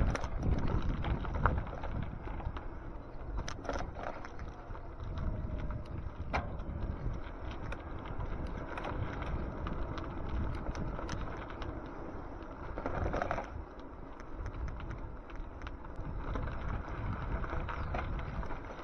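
Low rumble of wind and road noise while riding an e-bike, with scattered light clicks and rattles and a brief louder rush about two-thirds of the way through.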